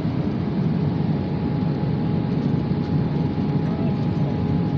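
Steady airliner cabin noise in flight: a constant roar of engines and rushing air, with a thin steady tone above it.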